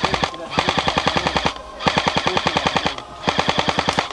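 Airsoft rifle firing full-auto in short bursts of rapid shots, about fifteen a second, with brief pauses between bursts.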